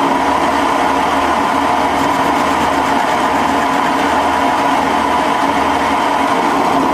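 Boxford metal lathe running steadily while an indexable insert takes a light, conservative cut across the rough, saw-cut end of a hardened tool-steel bar. Because the rough face makes this an interrupted cut, it is hard on the insert.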